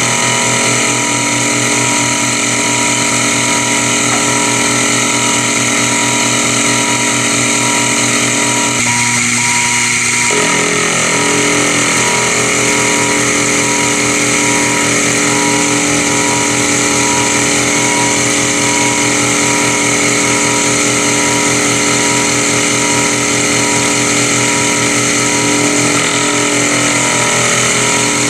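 Sherline mini milling machine running steadily, its 3/8 in end mill cutting 6061 aluminium, with a constant motor whine and a faint regular pulse. The sound shifts slightly about a third of the way through.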